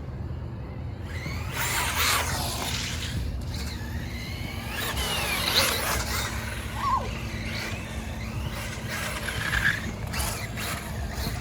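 Electric RC trucks driving on skatepark concrete: bursts of motor whine and tyre squeal as they speed up and turn, the strongest about 2, 5.5 and 10 seconds in.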